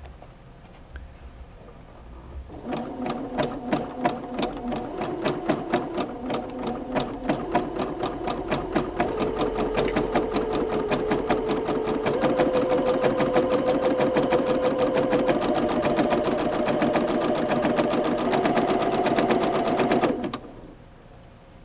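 Singer electric sewing machine stitching a zigzag stitch along a ribbon. It starts about two and a half seconds in with a rapid, even needle rhythm, and its motor whine steps up in pitch a few times as it speeds up. It stops shortly before the end.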